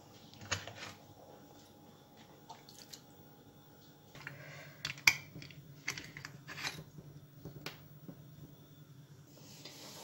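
Scattered clicks and knocks of glass jars and metal twist-off lids being handled and screwed shut, the sharpest a little past the middle. A faint low hum comes in about four seconds in.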